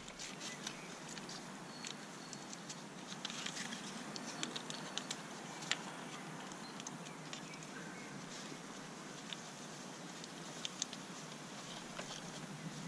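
Light rain pattering faintly, with scattered small ticks throughout.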